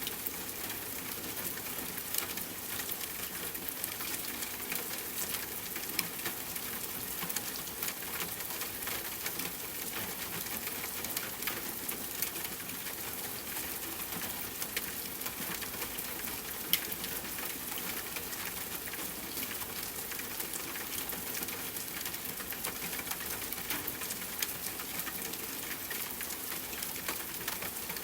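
Steady rain falling, a dense even patter with scattered louder drops landing close by.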